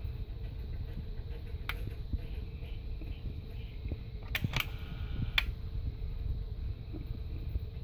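Small motorised model arm of wooden sticks moving: a sharp click early on, then a cluster of clicks with a brief faint whir of a small motor about four and a half to five and a half seconds in, over a steady low hum.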